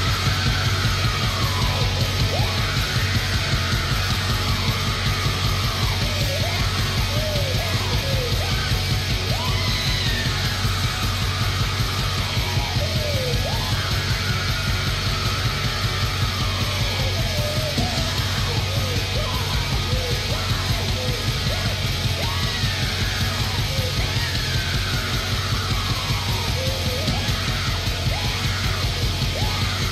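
Loud extreme metal: screamed vocals over a dense wall of distorted guitars and fast, driving drums.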